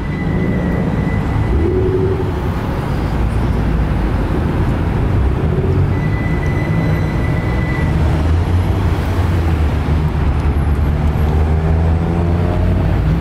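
Car engines running as cars roll slowly past on the street: a steady, loud low rumble with road and traffic noise, and a faint thin high tone heard twice.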